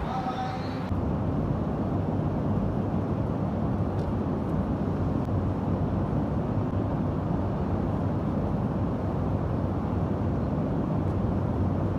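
A steady low rumble with a faint hum in it. It gets a little louder about a second in and then holds even.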